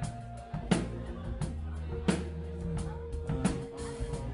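Live band playing a slow hip-hop groove: drum kit with a heavy hit about every second and a half, over bass guitar and held keyboard notes.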